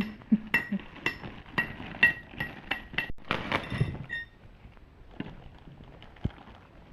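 Light metallic clinks, about two a second with a short ring, from ceiling fan parts being handled during assembly. After about four seconds only faint handling noises remain.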